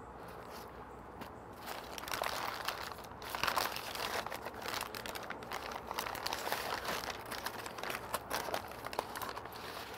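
Butcher paper crinkling and rustling as it is unwrapped, a dense run of crackles that starts about two seconds in and goes on for most of the rest.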